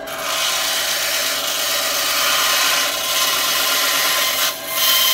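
Band saw blade cutting through a short piece of white PVC drain pipe, shaving a little off it, a loud cutting noise over the saw motor's steady hum. The cutting breaks off briefly near the end, then resumes.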